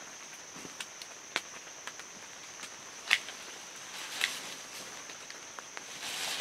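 Hand loppers snipping through small branches: a sharp snap about three seconds in and another about a second later, with lighter clicks and a brief rustle of brush near the end. Behind it, a steady high-pitched insect drone.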